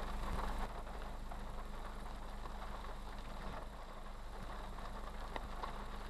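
Steady low hum of a vehicle's idling engine heard inside the cabin, with rain hiss and a few faint drop ticks on the windshield.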